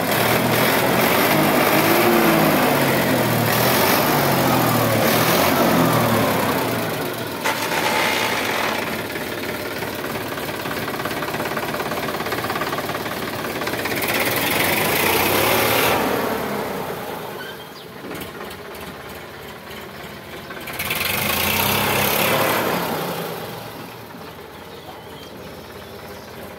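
Sonalika tractor's diesel engine running and being revved: loud for the first several seconds, then rising in pitch and volume twice more and dropping back, settling to a quieter idle near the end.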